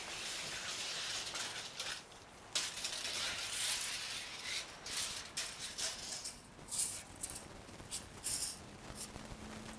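Scattered light rustles and clicks of hands working a tape measure, with the metal blade rattling as it is pulled out and let back in. Two sharper clicks stand out near the end.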